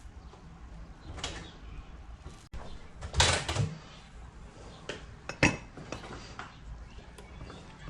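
Small metal tools and parts knocking and clattering on a workbench while wires are soldered, with the loudest clatter about three seconds in and a sharp knock a couple of seconds later.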